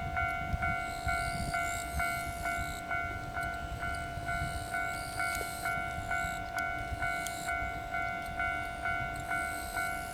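Railway level crossing warning bell ringing, struck about twice a second with a steady ringing tone, signalling that a train is approaching. Under it there is a low rumble.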